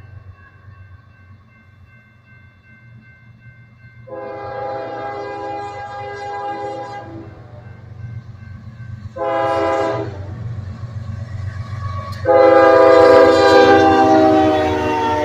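Union Pacific diesel freight locomotive's air horn sounding for a crossing as the train approaches and passes: a long blast, a short one, then a long, loud blast that sags slightly in pitch as the locomotives go by. Under the horn the locomotives' diesel engines rumble, growing as they close in.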